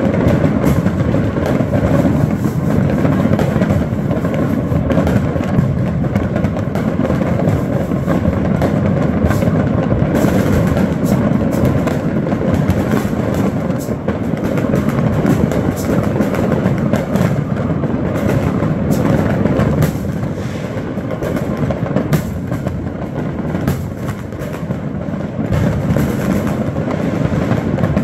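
Many fireworks going off at once, aerial shells and firecrackers across a neighbourhood, merging into an unbroken crackling rumble dense with sharp pops and bangs. It eases slightly about two-thirds of the way through.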